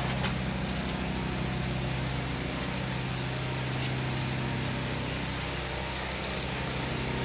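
An engine running steadily at a constant speed, an even drone that does not change.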